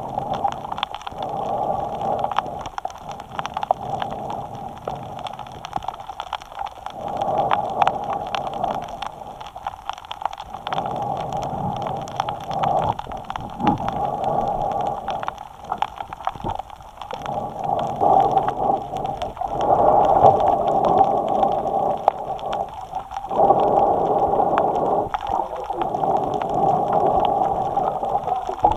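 Snorkeler's breathing through the snorkel, picked up by a camera mounted on the snorkel: hoarse breaths that swell and fade every few seconds, with small crackles of water throughout.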